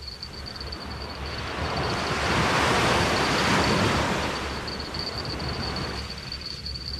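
Sea waves breaking and washing up a sandy beach: the surf noise swells over a couple of seconds, peaks about three seconds in, then fades. A faint, steady, high-pitched whine runs underneath.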